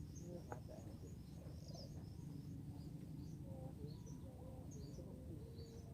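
Small birds chirping, short high calls scattered irregularly, over a faint steady low background rumble.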